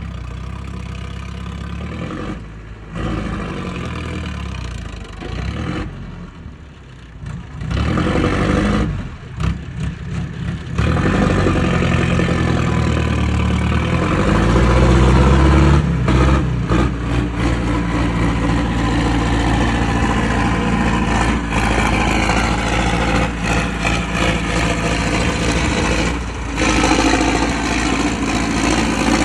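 Sonalika 60 tractor's diesel engine running while hauling a fully loaded trolley. It is quieter and uneven for the first ten seconds or so, then grows louder about eleven seconds in and runs steadily under the load.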